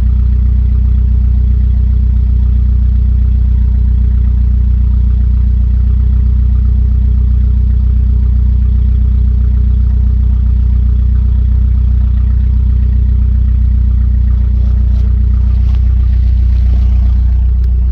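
Volvo 240 engine idling steadily with no exhaust fitted, the pipe cut off in front of the catalytic converter: a loud, even idle. A few light clicks come near the end.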